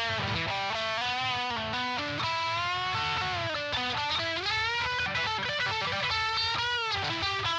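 Vester Catalina series Stratocaster electric guitar played as a melodic single-note line, with several notes bent up and back down in pitch.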